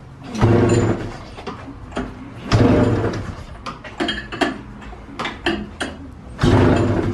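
Two-stroke twin-cylinder snowmobile engine being pull-started by its recoil rope: three hard pulls, about half a second in, about 2.5 s in and about 6.5 s in, each a short cranking whir. It turns over without catching, with no fuel pump running yet.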